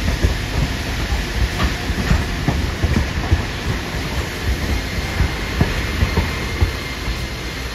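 Hiroden Green Mover Max articulated low-floor tram pulling into the stop, its running gear rumbling steadily while the wheels knock irregularly over the rail joints and points, with a faint steady whine above.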